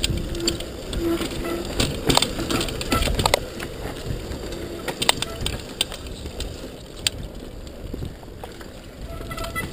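Mountain bike descending a rough dirt trail at speed: a steady rush of tyre and wind noise with frequent sharp clatters and knocks from the bike over bumps.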